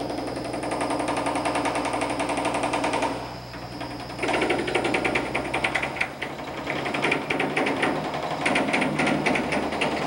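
Chipping hammer knocking dried concrete out of a concrete mixer truck's drum: a rapid, continuous rattle of metal-on-concrete blows over a steady low hum. It pauses about three seconds in and starts again louder a second later.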